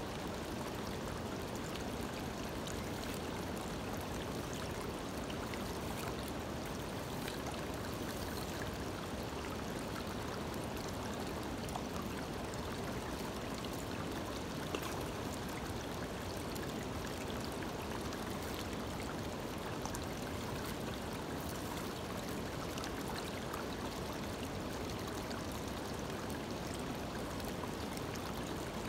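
Shallow creek water running steadily over stones and through a small sluice box set in the current, with a few faint clicks.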